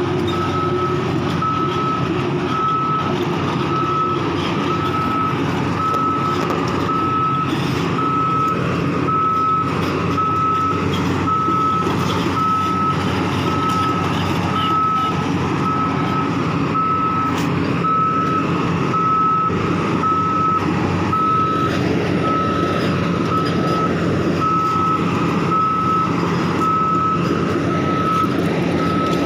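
Sany rotary drilling rig's diesel engine running steadily under an evenly repeating warning beep, about one and a half beeps a second, typical of a machine's travel or reversing alarm.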